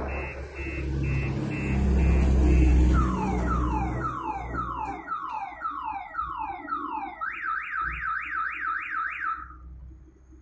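A car alarm cycling through its tones: a quick series of beeps, then falling whoops about two a second, then a fast up-and-down warble that cuts off about nine and a half seconds in. Underneath is a low engine rumble, loudest about two to three seconds in.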